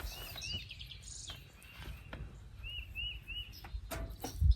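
A small bird chirping short, arched notes, two near the start and three in quick succession a little past halfway, over a low rumble of wind, with a few sharp clicks and a low thump near the end.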